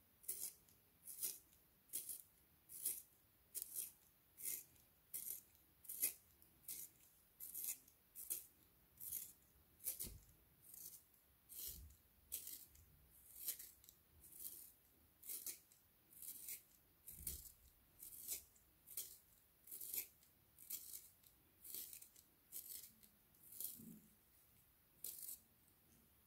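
Handheld plastic pencil sharpener shaving a red wooden Koh-i-Noor pencil. Each turn of the pencil gives a short, dry, crisp rasp of the blade cutting wood, a little more than one a second in a steady rhythm. The rasps stop near the end.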